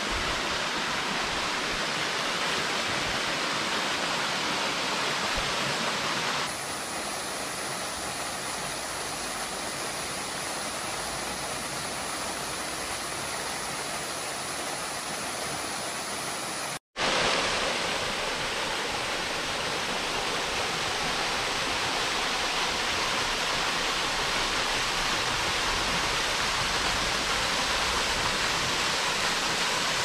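Steady rush of the Fairy Glen Falls, a woodland waterfall pouring into a rocky pool. The tone changes abruptly about six seconds in, and the sound drops out for an instant a little past the middle.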